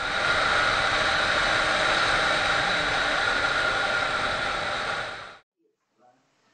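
Steady rush of wind and road noise on a motorcycle rider's camera as the bike rides along, cutting off suddenly about five seconds in.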